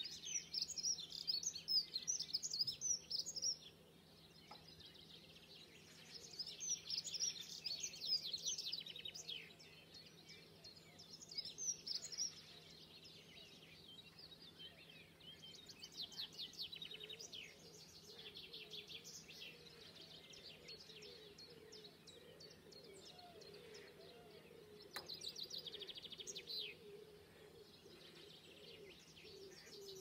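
Songbirds singing: trilled phrases of a few seconds each, repeated about half a dozen times with pauses between, over a faint steady low hum.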